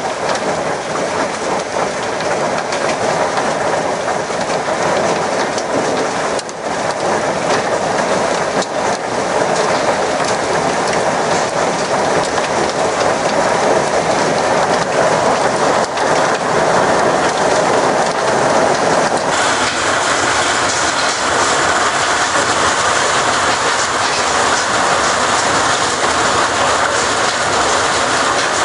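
Hailstorm: hailstones pelting down on the garden and roofs in a loud, dense, steady rattle, growing harsher about two-thirds of the way through.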